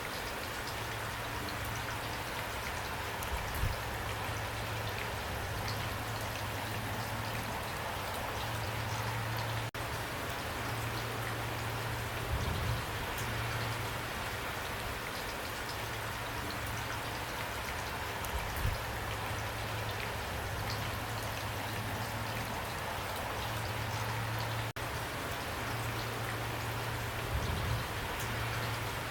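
Heavy rain pouring steadily, a dense even patter of drops, with a low hum underneath and four dull thuds spaced through it.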